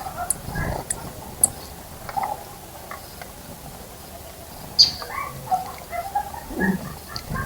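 Wild birds giving short, scattered chirps and calls, with a few sharp high ticks and a couple of low thuds.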